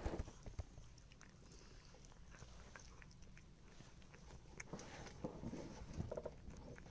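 A cat chewing and biting at a soft white scrap: faint, scattered small clicks and crunches, a little busier in the second half.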